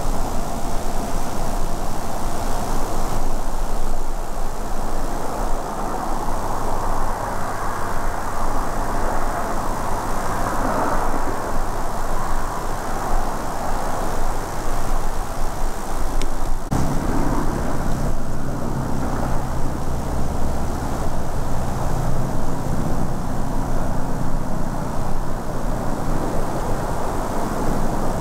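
Wind rushing steadily through the trees, with a distant engine's low, steady drone underneath that grows stronger about halfway through.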